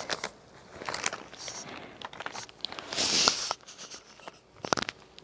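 Rustling and scattered clicks and light knocks of makeup items being handled and moved aside, with a louder rustle about three seconds in.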